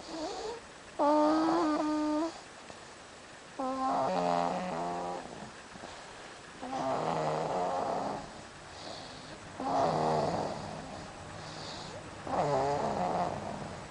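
A person snoring in sleep: five long, pitched snores, one about every three seconds.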